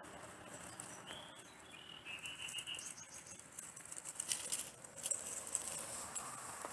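Nine-banded armadillo rooting through dry leaf litter: faint rustling and crackling of dry leaves, coming in short louder bursts after about four seconds. A bird calls faintly about a second in, a short note followed by a quick trill.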